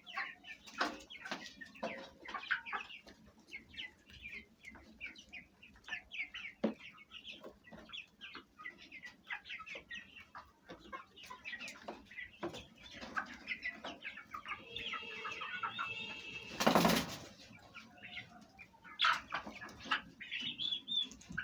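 Domestic hens and chicks clucking and peeping in a steady scatter of short calls, with one drawn-out high call a little past the middle. A short, loud burst of noise follows shortly after, the loudest moment.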